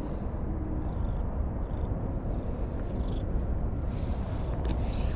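Domestic cat purring steadily, a low, continuous rumble close to the microphone.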